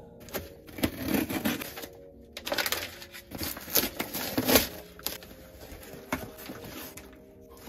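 A cardboard shipping box being cut open: a blade scraping and slitting through the packing tape, then the cardboard flaps rustling and knocking as they are pulled open near the end.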